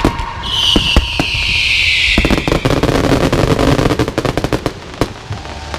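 Fireworks barrage: a rapid volley of bangs from shells launching and bursting, with a hissing whistle falling in pitch during the first couple of seconds. The bangs thin out and grow quieter toward the end.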